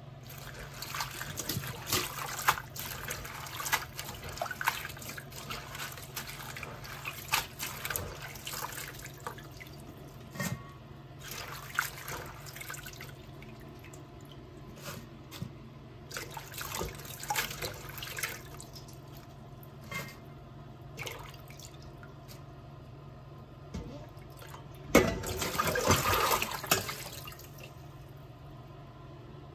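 Spinach leaves being swished and lifted by hand in a stainless steel bowl of water in a sink, with splashing and dripping. About 25 seconds in, a louder rush of water lasts a couple of seconds as the bowl is emptied.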